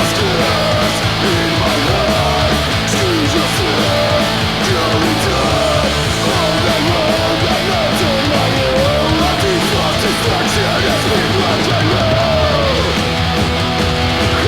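Punk 'n' roll band recording played from vinyl: distorted electric guitars, bass and driving drums, with a melody line that bends and slides in pitch above them.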